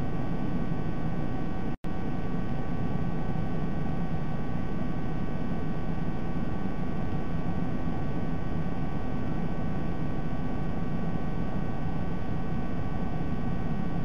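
Steady hiss and hum from a live nest camera's audio feed, with several faint steady whining tones. The sound cuts out for an instant about two seconds in.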